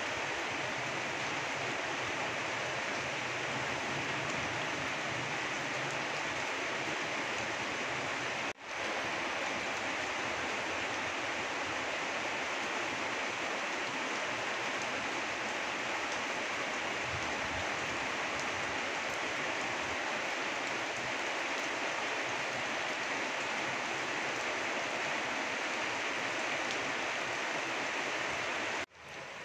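Steady rain falling on broad garden leaves and grass, an even hiss of drops. The sound cuts out for an instant about eight seconds in and again near the end.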